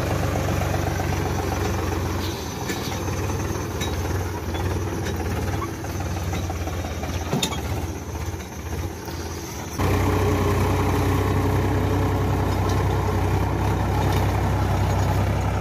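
Powertrac Euro 50 tractor's diesel engine running steadily as it pulls a rotavator tilling the soil. About ten seconds in, the engine note becomes suddenly louder and steadier.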